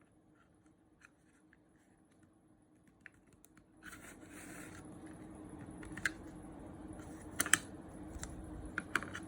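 Light plastic clicks and taps from a small fan and its fittings being handled and positioned inside a refrigerator. About four seconds in a steady hum with an airy hiss comes in and continues under sharper clicks.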